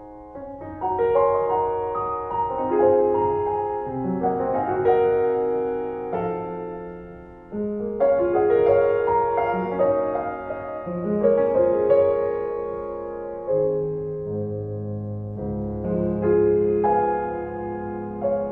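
Background piano music, slow notes and chords.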